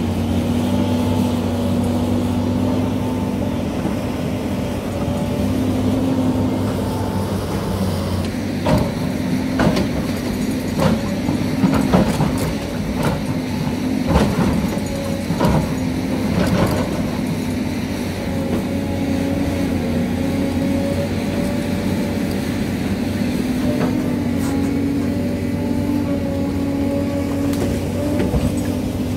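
SANY hydraulic excavator's diesel engine running steadily as its bucket digs into earth and rock. From about eight seconds in, for some ten seconds, a run of sharp knocks and scrapes as the bucket strikes stones.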